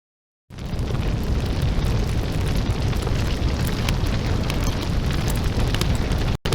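Loud, dense crackling noise with a deep rumble underneath, starting suddenly about half a second in and cutting out briefly near the end.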